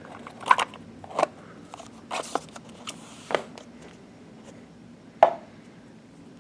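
Small parts and packaging being handled on a table: a handful of irregular sharp clicks and knocks, the loudest about five seconds in.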